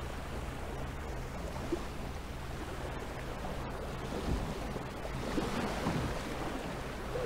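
Sea waves washing against and around the hull of a tandem fishing kayak, the rush of water growing louder about five seconds in as a wave breaks in white water alongside.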